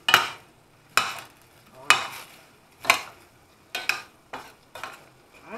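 Cooking utensil scraping and knocking against a stainless-steel pan as diced pork is stirred, about one stroke a second.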